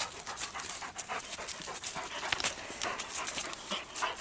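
Russian hound panting after the chase, a run of quick breaths in and out, about three or four a second.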